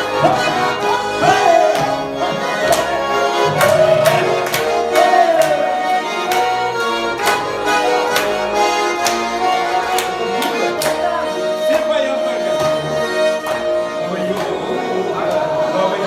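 Russian garmon (button accordion) playing a lively folk tune, with sharp beats marking the rhythm.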